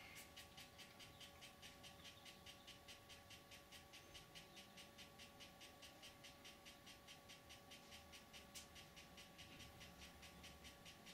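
Faint, even ticking of a handheld 3D pen's filament feed motor, about five or six ticks a second over a thin steady whine, as it pushes ABS filament through the hot nozzle to weld a seam.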